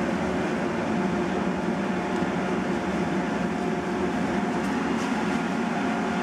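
Laser cutter's exhaust fan running steadily: a loud, even rush of air with a faint steady hum in it.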